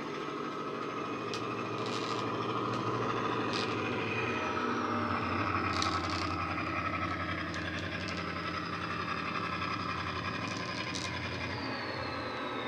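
Model Class 68 locomotive's DCC sound decoder playing the JMC Class 68 sound file through an EM2 speaker: a steady diesel engine drone under power as the model runs. Occasional sharp clicks, and a high tone that slides down twice.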